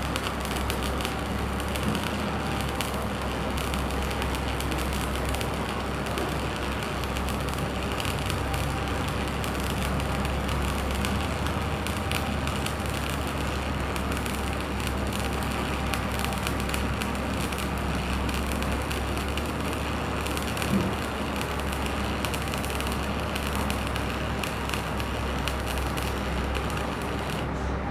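Electric arc welding on a vertical joint: the arc crackles and sizzles steadily over a low hum, and cuts off right at the end.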